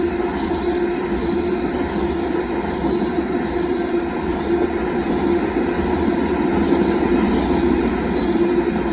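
Freight train of gravel hopper cars rolling past, a steady rumble of wheels on rail with no horn.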